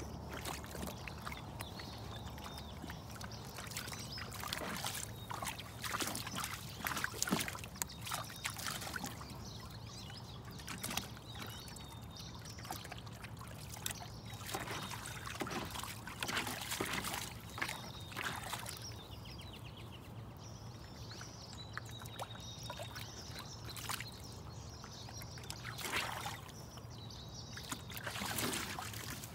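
Water splashing and sloshing in a shallow plastic kiddie pool in irregular bursts as a puppy paws and stamps in it, over a steady trickle of water from a garden hose running into the pool.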